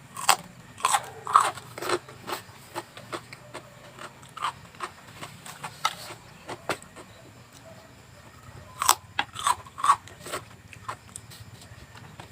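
Crunchy vegetables being bitten and chewed: a run of loud crunching bites in the first two seconds and again about nine seconds in, with quieter chewing crunches in between.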